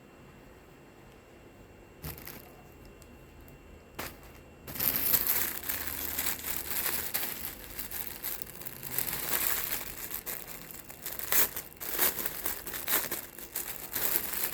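Two light clicks, then from about five seconds in a continuous crinkling and rustling of plastic packaging being handled while the gloves are unpacked.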